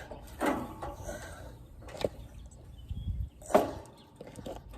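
A few separate knocks and thumps, the loudest about three and a half seconds in, from an air-conditioner outdoor unit being handled on and off a pickup bed.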